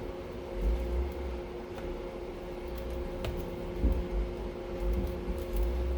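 A steady mechanical hum, with a few faint light clicks and low handling bumps from a circuit breaker being worked apart by hand.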